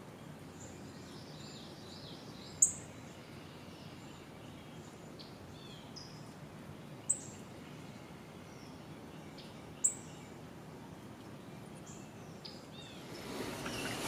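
Quiet woodland ambience with faint bird chirps and three short, sharp clicks spaced a few seconds apart. Near the end, rustling footsteps through undergrowth come in.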